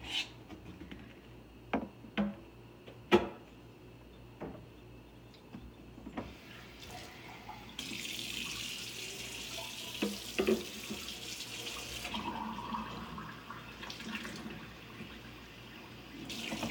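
A few sharp knocks and bumps close to the microphone, then water running for about four seconds like a tap, with more knocks partway through.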